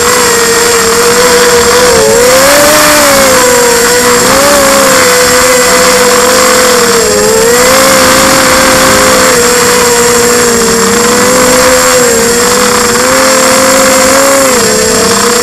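Quadcopter's electric motors and propellers whining in flight, heard close from the onboard camera. The pitch keeps swooping up and down with the throttle, over a steady hiss.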